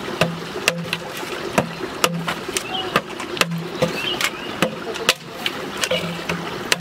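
Machete blade chopping into a green bamboo pole, sharp strikes coming about twice a second, slightly irregular.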